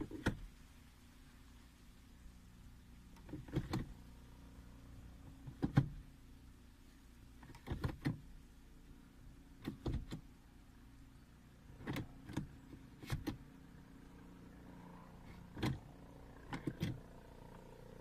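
Stock gear lever of a Nissan Sentra SE-R Spec-V six-speed manual being shifted from gear to gear: short mechanical clicks and clunks as it drops into each gate, about every two seconds, over a steady low hum.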